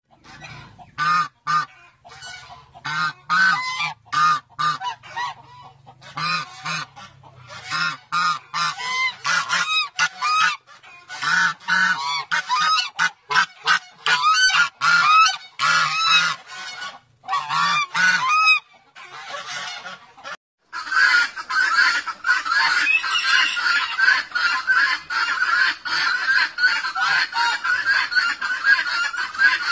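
Domestic white goose honking, a long run of short, separate honks. About two-thirds of the way through the sound cuts to a dense, unbroken chatter of rapid fowl calls.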